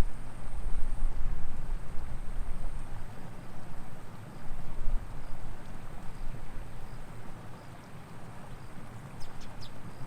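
Outdoor ambience: low, gusting wind rumble on the microphone, with a few short high chirps near the end.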